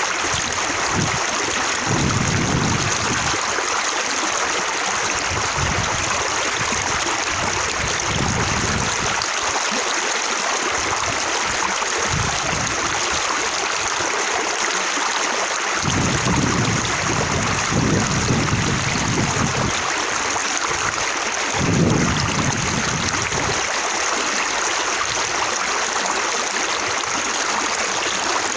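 Flowing water with droplets splashing and bouncing, a steady rush with deeper gurgling surges several times.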